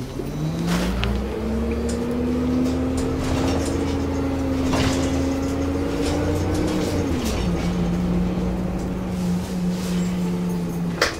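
City transit bus's engine heard from inside the cabin as the bus pulls away: the pitch rises for about two seconds, holds steady, then drops to a lower steady pitch about seven seconds in as the transmission shifts up. A sharp click near the end.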